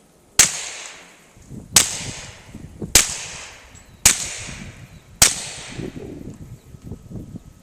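Five suppressed .45 ACP pistol shots from a Glock 21 SF with an SWR suppressor shot wet with white lithium grease, fired about a second apart, each followed by a decaying echo. The can is a little louder than it usually is because it was given too little grease.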